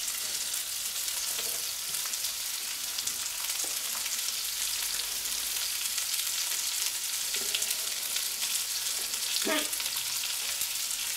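Beef burger patties and sliced onions sizzling in a frying pan on a hot burner: a steady crackling hiss.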